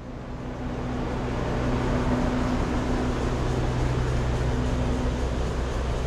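Alishan Forest Railway sightseeing train running: a steady low diesel engine hum under wheel-and-rail noise, swelling up over the first second or so.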